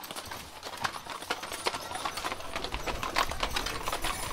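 Mule hooves clip-clopping irregularly on a paved road as a team pulls a wagon at a walk. A low rumble joins about three seconds in.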